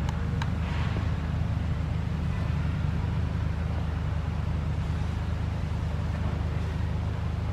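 A steady low hum, with two sharp clicks just after the start.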